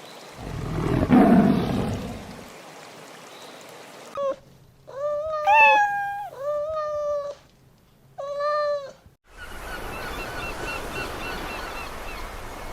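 A cat meowing about five times, the meows drawn out and some bending up in pitch. They follow a loud, low, rough sound at the start. Near the end there is a steady hiss with faint chirps repeating at even spacing.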